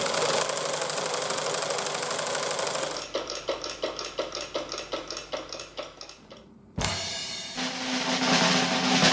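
A fast, even mechanical clatter that gives way, about three seconds in, to slower, regular knocks that fade out. After a brief pause, music with a drum kit starts abruptly.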